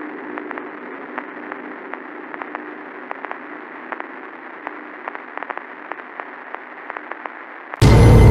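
Dark ambient electronic music: a muffled, radio-like hiss with a steady low hum and scattered irregular crackles, like static from a poorly tuned radio. Near the end it cuts suddenly to a much louder, dense drone with steady low and high tones.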